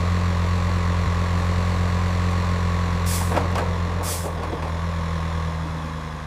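Heavy vehicle engine running steadily with a low hum, with two short air hisses about three and four seconds in.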